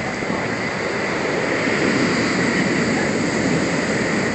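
Heavy storm surf in a hurricane, a steady roar of breaking waves without pause.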